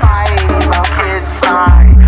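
Hip hop track playing: a heavy bass and crisp hi-hat ticks under a melodic line. About three quarters of the way through, a deep bass note hits and the music gets louder.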